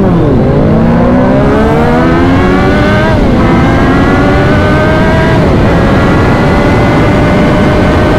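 Superbike engine accelerating hard through the gears. Its pitch climbs, drops sharply at an upshift about three seconds in, climbs again, dips at a second shift about five and a half seconds in, then holds high and nearly steady.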